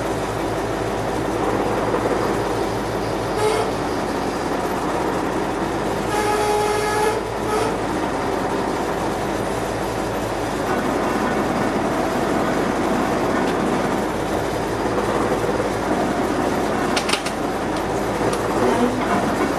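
Truck-mounted crane's diesel engine running steadily under load while it lowers a suspended tank turret, with a short whine about six seconds in and a sharp click near the end.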